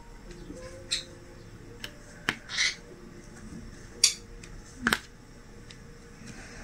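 Diamond painting drill pen tapping resin drills onto the canvas: a handful of sharp little clicks at uneven intervals, the loudest about four seconds in.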